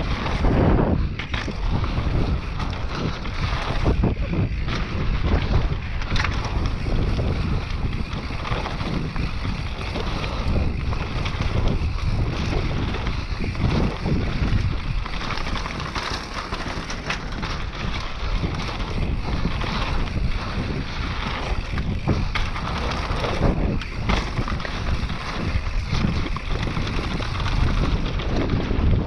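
Mountain bike riding fast down a dirt trail: steady wind buffeting the microphone over tyre noise, with the bike clattering on bumps many times throughout.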